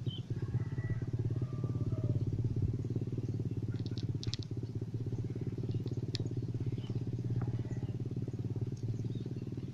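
A small engine running at a steady speed, a low even rumble with a fast regular pulse, with a few light clicks about four and six seconds in.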